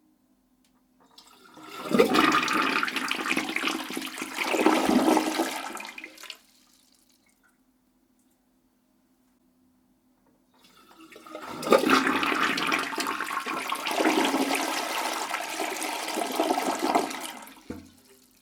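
A toilet flushing twice: a loud rush of water lasting about five seconds, then after a pause of a few seconds a second flush of about seven seconds.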